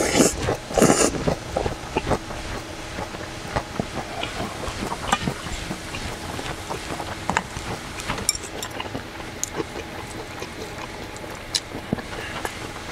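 A person slurping noodles loudly twice in the first second or so, then chewing, with scattered small clicks of a wooden spoon and chopsticks against a stainless steel bowl and metal container. A faint steady hum runs underneath.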